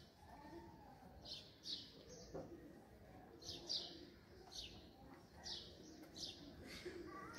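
Small birds chirping faintly: short, high chirps that fall in pitch, often in quick pairs, about one every second.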